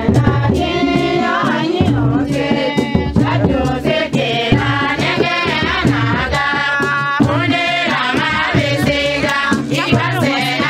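Music: a group of voices singing together over percussion.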